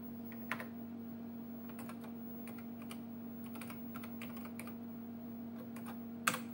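Keys of an HP-86B computer's built-in keyboard being typed, irregular key clicks as a LOAD "FEATURES" command is entered, with one louder key press near the end as the line is entered. A steady hum runs underneath.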